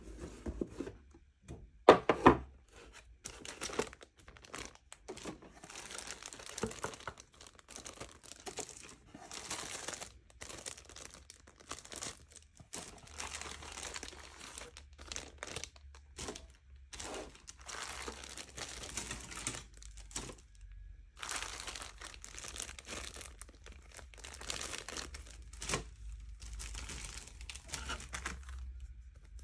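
Clear plastic bags around plastic model-kit parts crinkling and rustling as they are handled in a cardboard box, in irregular bursts. A few sharp knocks about two seconds in are the loudest sounds.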